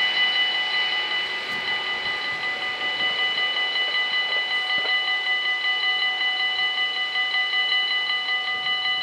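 Warning bells of a Dutch automatic half-barrier level crossing (AHOB) ringing fast and evenly with a bright metallic ring, about five strokes a second, while the half barriers lift after the train has cleared.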